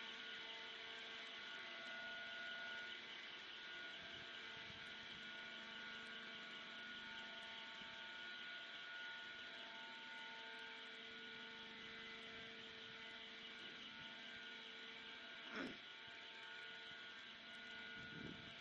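Faint, steady machine hum made of several constant tones, with one brief sharp sound about fifteen seconds in.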